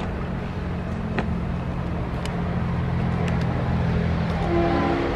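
GE Dash-9 diesel locomotive running out of sight, a steady low engine drone growing slightly louder. A brief higher tone joins near the end.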